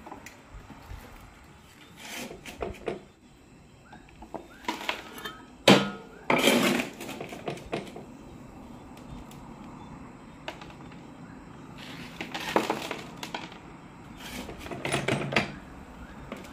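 Intermittent handling noises: short clatters and scrapes, loudest at a sharp knock about six seconds in followed by a second of scraping, with more scraping near the end.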